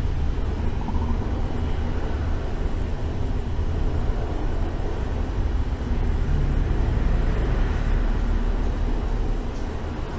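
A steady low rumble, with no clear individual events.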